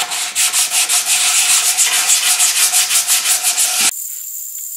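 Sanding block with 80-grit paper rubbed quickly back and forth over a wooden guitar body, rasping strokes in a fast even rhythm, stripping the sealer coat down to bare wood. The strokes stop abruptly about four seconds in, giving way to a steady hiss.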